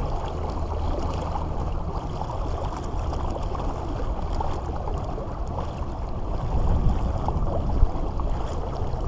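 Water rushing and gurgling along the hull of a Wilderness Systems Radar 115 kayak under way on Helix pedal drive, over a steady low rumble.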